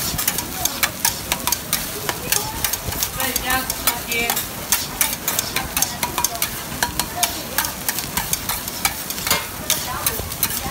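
Egg fried rice being stirred on a flat round griddle: a metal spatula clicks and scrapes rapidly against the hot surface, several strikes a second, over the steady sizzle of frying egg and rice.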